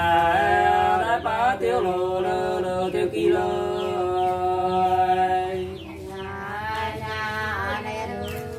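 Hát sli, the Nùng people's unaccompanied antiphonal folk song, sung in long, drawn-out wavering notes. The melody steps up to a higher held note about six seconds in.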